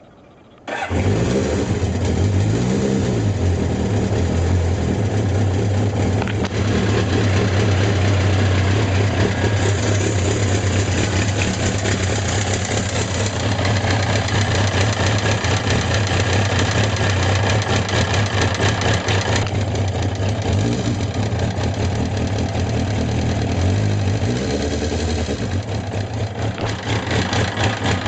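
Suzuki GSX750S Katana's air-cooled inline-four engine starts up about a second in and runs at idle with a mechanical rattling and ticking (katakata, kachikachi). Replacing the rocker arms, camshaft and cam chain parts and adjusting the tappet clearance have not cured the noise, and its cause is unknown.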